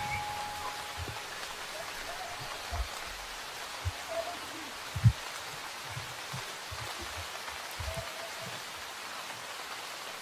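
Steady rain falling and hissing on wet ground, with a few low thumps, the loudest one about five seconds in.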